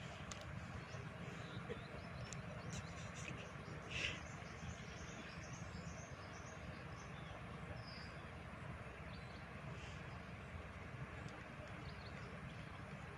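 Outdoor ambience: a steady hiss over a low rumble, with a few short bird chirps and one brief louder sound about four seconds in.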